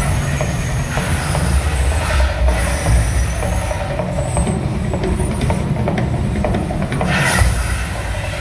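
Mirage volcano eruption show: a heavy, continuous low rumble with hissing surges as the gas flames shoot up, the strongest about seven seconds in.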